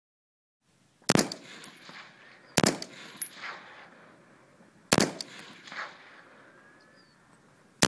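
Scoped AR-style semi-automatic rifle fired four times at a slow, deliberate pace. The first shot comes about a second in, then one every two to three seconds. Each sharp report is followed by a softer second crack about half a second later and a trailing echo.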